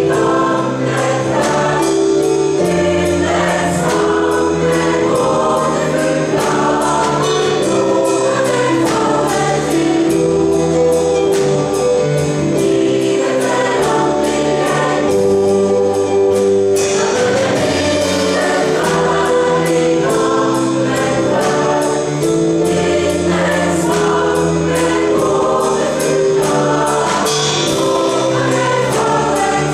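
Mixed choir of men and women singing a song with piano accompaniment over a steady beat.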